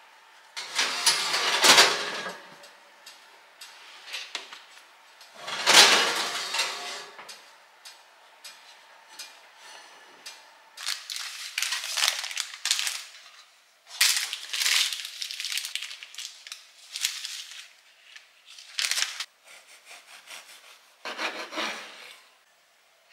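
Kitchen food-preparation sounds: a series of scraping and rustling bursts, the longest about a second or two, with short clicks of utensils between.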